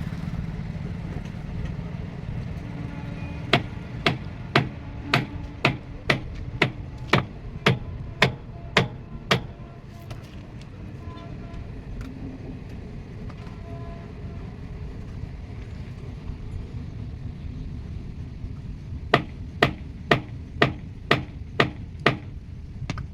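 A heavy machine's engine running steadily. Over it come two runs of sharp, evenly spaced knocks about two a second: about a dozen in the first half and about seven near the end.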